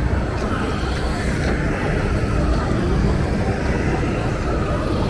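Busy street ambience: a steady rumble of road traffic, motor scooters and cars running in the street.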